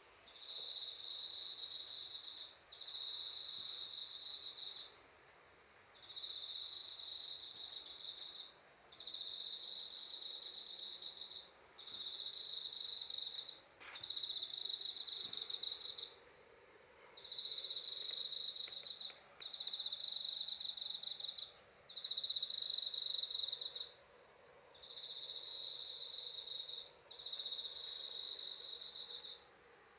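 An insect singing in long, high trills, each about two seconds long with short pauses between them, repeated steadily about a dozen times.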